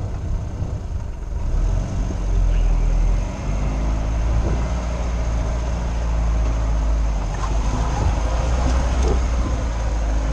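Lada Niva's engine running under load while driving off-road, heard from inside the cabin, its pitch rising and falling a little with the throttle. There are a few short knocks along the way.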